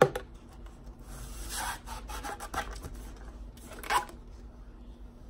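A rolled banner being worked out of a cardboard mailing tube: paper and cardboard rubbing and rasping against each other. A sharp knock right at the start, and a short, louder scrape about four seconds in.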